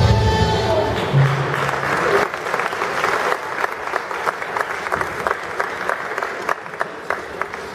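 The last notes of floor-exercise music, then an audience applauding from about two seconds in, with single hand claps standing out.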